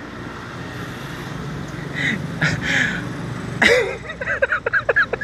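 A low rumble like passing road traffic swells over the first few seconds. Then a man's voice breaks into short rapid bursts of laughter near the end.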